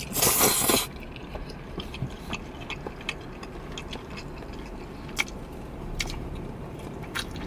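A person slurping a mouthful of fettuccine noodles in one loud burst of under a second, then chewing close to the microphone with scattered small wet clicks and smacks.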